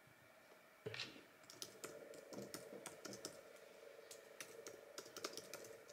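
Typing on a computer keyboard: quiet, irregular key clicks that start with a soft knock about a second in, over a faint steady hum.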